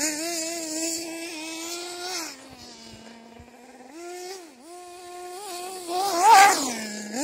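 A 1/8-scale nitro RC buggy's single-cylinder two-stroke glow engine runs at high revs as the buggy drives around. The pitch drops and rises with the throttle, and the engine is loudest as the buggy comes close, about six seconds in.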